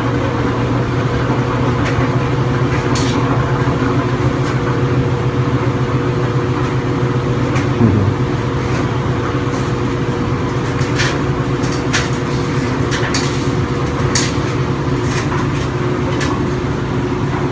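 Steady hum and rushing air of an electric blower running without a break. Scattered sharp clicks come through it, mostly in the second half.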